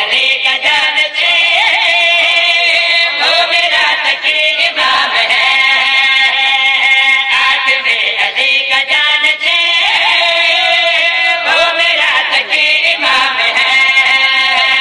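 Devotional qasida singing: a voice holding long, wavering melodic notes with layered voices behind it.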